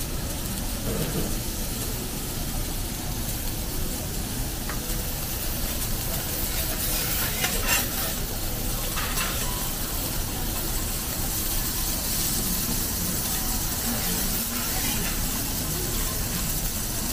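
Garlic-topped shrimp and shellfish sizzling on a hot teppanyaki steel griddle, with metal spatulas scraping and tapping on the plate. A quick run of sharper spatula scrapes and clinks comes around the middle.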